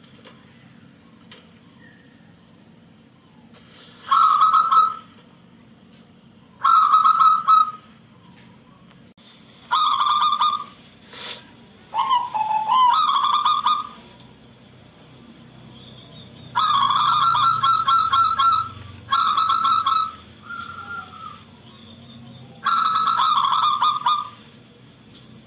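Zebra dove (perkutut) singing its shrill cooing song: about eight phrases of rapid pulsed coos, each around a second long, with pauses of one to three seconds between them.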